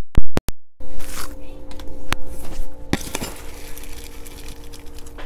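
A metal measuring cup clinks against a tin can as it scoops freeze-dried sweet corn, and the dry corn is tipped into a cast-iron skillet with a light rattle and hiss. Several sharp clicks come near the start, and a steady low hum runs underneath from about a second in.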